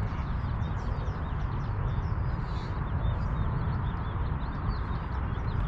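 Many small birds chirping at dawn, short high calls coming several times a second, over a steady low rumble.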